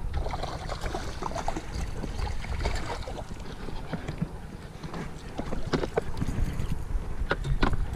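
Wind rumbling on the microphone, with a few sharp clicks or knocks late on.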